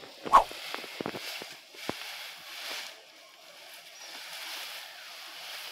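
Cut brush and branches rustling and crackling as they are handled and piled onto a wood stack, with one loud knock about a third of a second in and a few sharp snaps after it.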